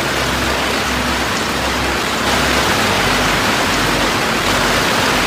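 Hailstones pelting down in a dense, steady downpour, a loud even rush that cuts in suddenly at the start.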